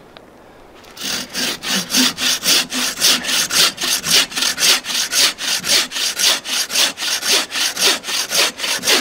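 Bow saw cutting through a dry deadwood log with quick, even push-and-pull strokes, about two a second, starting about a second in.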